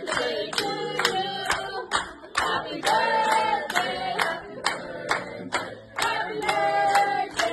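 Group of voices singing a birthday song together, with hands clapping steadily in time, about three claps a second.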